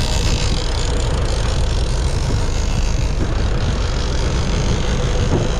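Sportfishing boat's engine running steadily underway, with a steady rush of wind and water.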